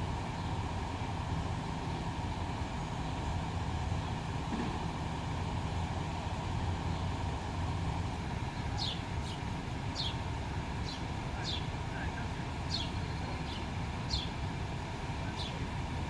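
Fire engine idling with a steady low rumble and a constant hum. From about halfway through, short high chirps that fall in pitch come and go at irregular intervals.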